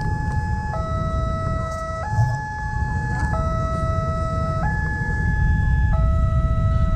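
Railway level-crossing warning siren sounding its electronic two-tone alarm, stepping between a higher and a lower tone about every 1.3 seconds, over a low rumble.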